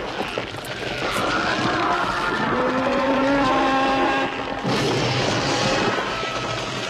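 Monster-film creature sound effect: a loud, shrill screech that wavers and glides in pitch with several tones at once. About four and a half seconds in, a sudden burst of harsher noise breaks in.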